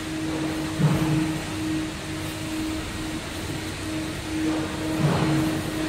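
Commercial chicken pressure fryer running mid-cook under pressure: a steady hum over a hiss, with two short low thumps, about a second in and again near the end.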